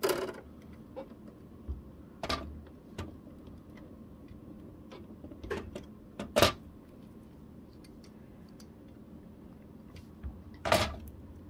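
Scattered clicks and knocks of plastic printer parts being handled as the fuser unit's wire connectors are pushed into their sockets. There are about five separate knocks, the sharpest a little past the middle and another near the end.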